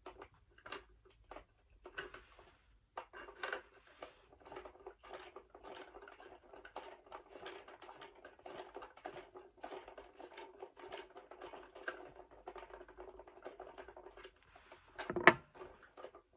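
Hand screwdriver driving screws into the plastic back casing of an animatronic Santa figure: a run of small scratchy clicks and creaks over a faint steady hum. A single loud knock comes about fifteen seconds in.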